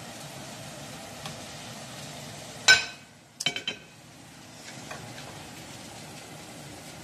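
French fries sizzling steadily in hot oil in a pan. A sharp metal clink comes a little under three seconds in, followed half a second later by a quick rattle of clinks as a ceramic plate is set down on the gas stove's metal grate.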